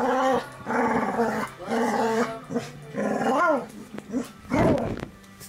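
A small puppy growling in a play fight: a run of four short, pitched growls about a second apart, each bending up and down, followed by a shorter, rougher sound near the end.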